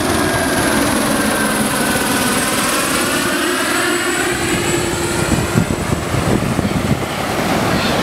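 An aircraft, most likely a helicopter, passing low overhead: a loud, steady rush whose pitch sweeps down and then back up as it goes by.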